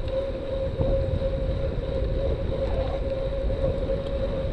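Cyclocross bike rolling on pavement at a steady pace: an even tyre hum over a low road rumble.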